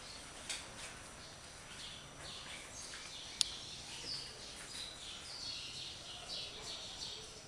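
Small birds chirping outside, short high calls every second or so, some falling in pitch. A single sharp click about three and a half seconds in.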